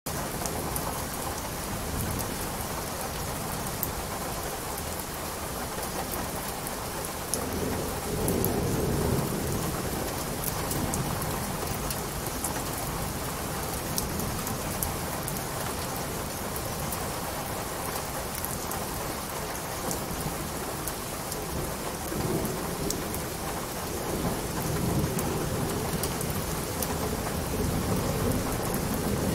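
Steady rain with many small drop ticks. Low rumbles of thunder swell about eight seconds in and again near the end.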